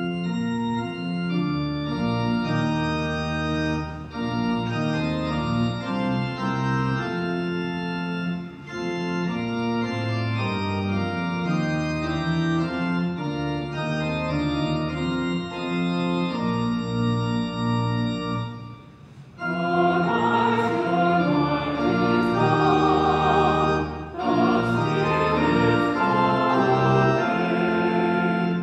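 Church organ playing a hymn introduction in steady chords with short breaks between phrases. About 19 seconds in, a small group of singers joins the organ and sings the hymn.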